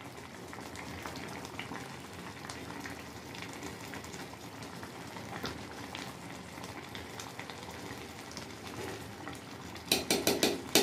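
A pot of tahari, rice with meat, simmering on the stove, with a faint steady bubbling and sizzling. About ten seconds in, a metal ladle clicks several times against the metal pot.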